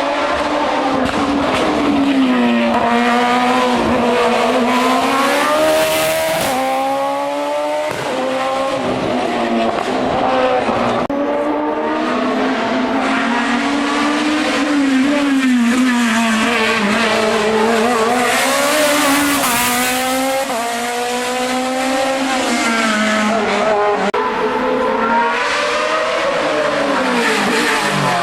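Racing car engine running hard on a hill climb. Its revs climb and drop again and again through gear changes and slowing for bends.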